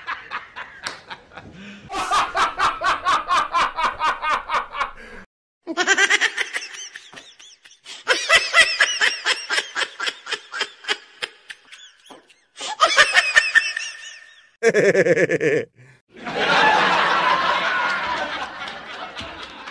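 A string of human laughter sound effects cut one after another, several different laughs each made of a quick run of repeated "ha-ha" pulses, with short breaks between the clips; near the end a "hehehe" laugh.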